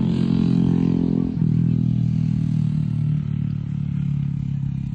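An engine running steadily, its pitch easing down slightly about a second and a half in.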